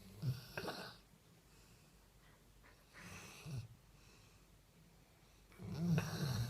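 Female Doberman snoring in her sleep: three snores about three seconds apart, each a low buzzing intake with breathy noise above it, the last the loudest.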